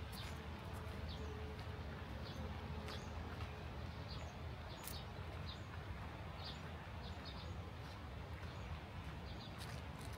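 Steady rush of water flowing down a cascading water staircase, with small birds chirping briefly and often over it.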